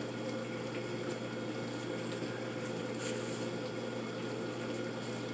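Steady low hum of a running household machine, like an appliance motor or fan, with a couple of faint soft clicks.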